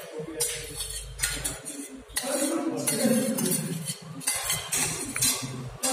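Metal spoon and dishes clinking: a run of short clinks and scrapes of a spoon against a plate while a child is being fed.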